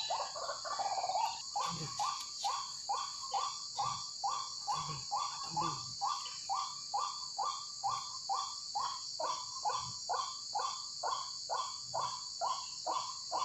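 White-breasted waterhen (ruak-ruak) calling: the same short croaking note repeated evenly, about two to three times a second, starting about a second and a half in. Under it is a steady high hum of crickets.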